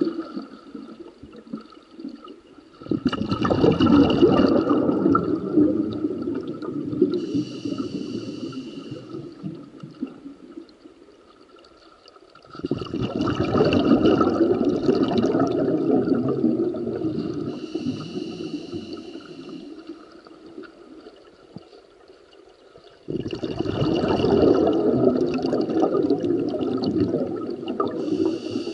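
A scuba diver's breathing heard underwater: three long bursts of exhaled bubbles rumbling and gurgling out of the regulator, about ten seconds apart, each followed a few seconds later by a shorter, higher hiss of the regulator on the inhale.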